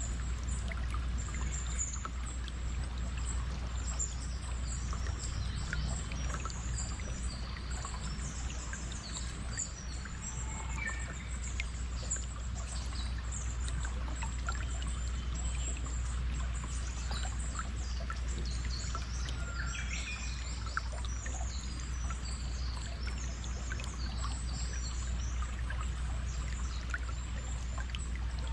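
Flowing stream water running steadily, with many birds chirping and calling throughout.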